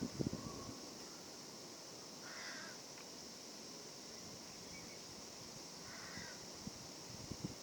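A crow cawing faintly, two short caws about four seconds apart, over a steady high hiss.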